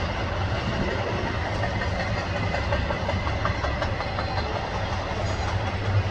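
Double-stack intermodal freight train of container well cars rolling past at a steady speed: a steady rumble of steel wheels on rail, with a few faint clicks about midway.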